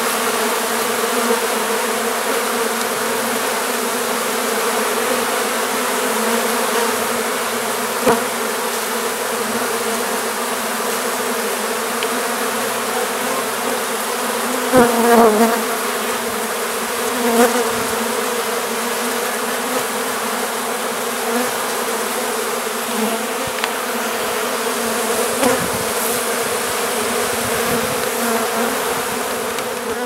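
Loud, steady buzzing hum of a honey bee colony, a swarm freshly put into a hive box and milling over the frames, with a couple of brief louder swells about halfway through.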